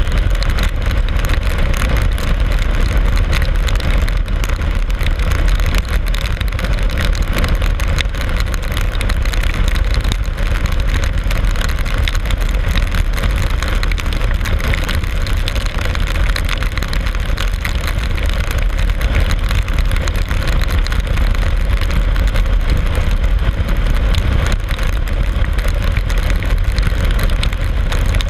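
Steady rush of wind and engine drone from a vehicle at highway speed in the rain, with tyres hissing on the wet road.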